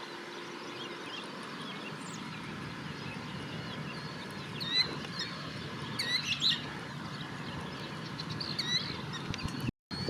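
Birds chirping and calling in short, high, scattered notes, loudest about five and six seconds in, over a steady low background rumble. The sound cuts out completely for a moment near the end.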